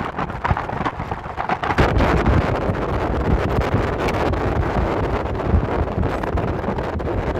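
Wind rushing over the microphone with the rumble of a car driving along, getting louder about two seconds in.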